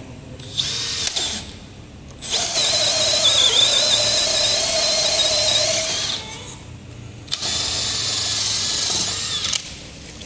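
Makita DDF489 18 V cordless drill boring a long auger bit down into a wooden block, running in three goes. First comes a brief burst, then a run of about four seconds with a high whine that wavers as the bit bites, then a run of about two seconds near the end.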